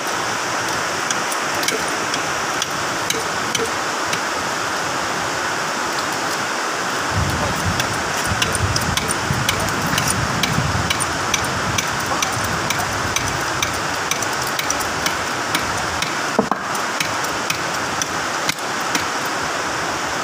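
Hydraulic bottle jack being pumped by its handle to raise a forklift reach truck's leg, giving many light irregular metallic clicks over a steady hiss.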